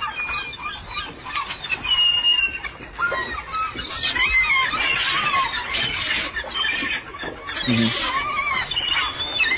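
A flock of seagulls calling, many short squawking calls overlapping and sliding in pitch, busiest in the middle and again near the end.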